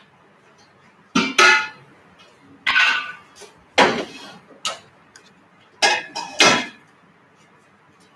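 Stainless-steel cookware being handled on a steel worktop: about seven clanks and clatters, some ringing briefly, as pots and a strainer are set out for straining dashi.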